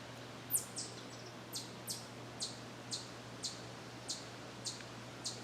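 A bird giving a series of short, high, sharp chips that drop in pitch, about two a second, starting about half a second in, over a faint steady low hum.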